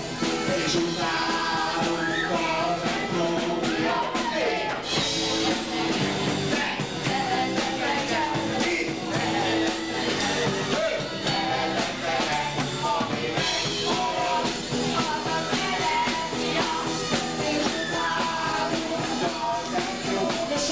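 A band playing rock music live, with voices singing into microphones over the instruments and a steady beat.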